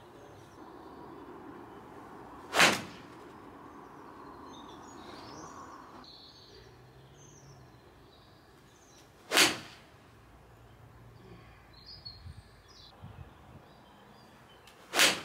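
Three sharp strikes of a golf iron hitting a ball, about seven and then six seconds apart, with faint bird chirps between them.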